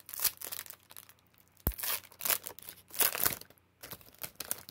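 Foil wrapper of a 2020 Chronicles baseball card pack crinkling and tearing as it is ripped open by hand. The sound comes in several bursts, with a sharp snap about a second and a half in.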